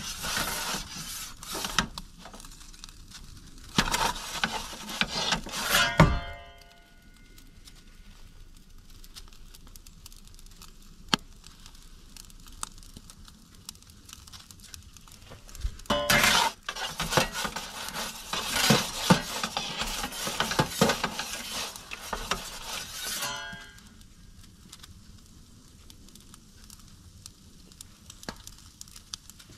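Metal pizza turning peel scraping and clinking against the stone and steel of an Expert Grill 15-inch charcoal pizza oven as the pizza is turned. It comes in two spells of several seconds, each ending with a ringing metal clank.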